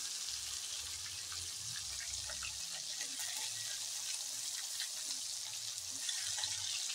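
Hot oil sizzling steadily around a whole marinated black pomfret as it deep-fries, with small crackles and pops through the hiss.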